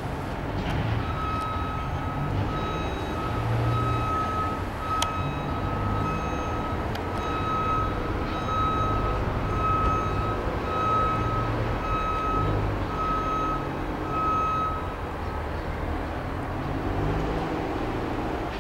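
Diesel locomotives of an Adirondack Scenic Railroad passenger train running with a low engine rumble. Over it, a high beep repeats about twice a second, stopping a few seconds before the end.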